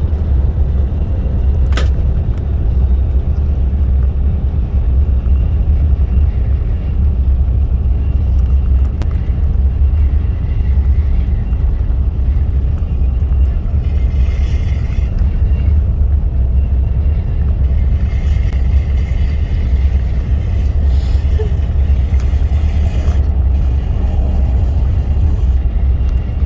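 Greyhound coach heard from inside the cabin while on the road: a steady, loud low rumble of engine and road noise, with a sharp click about two seconds in.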